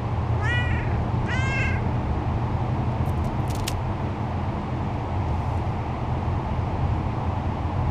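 A cat meows twice in quick succession, the two calls less than a second apart, over a steady low rumble. A few brief faint clicks come a little past the three-second mark.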